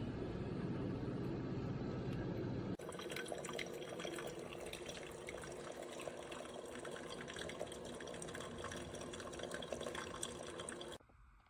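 Simply Good Coffee 8-cup drip coffee maker brewing. A low steady rumble gives way suddenly, about three seconds in, to the crackling trickle of hot water spattering and dripping. The sound stops abruptly near the end.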